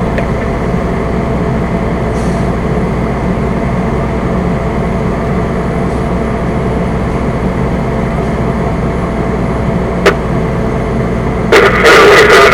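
Fire engine's engine running steadily, heard from inside the cab. There is a sharp click about ten seconds in. A loud burst of radio static starts near the end.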